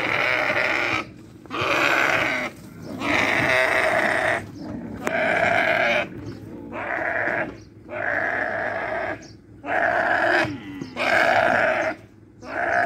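A camel bawling over and over while it is pushed and pulled off a truck: about ten loud, bleat-like calls, each about a second long, with short gaps between them.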